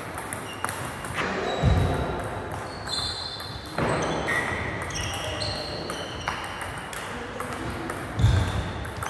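Table tennis rally: the ball clicking off the bats and the table again and again, with several short high squeaks. Two low thuds, about two seconds in and near the end, are the loudest sounds.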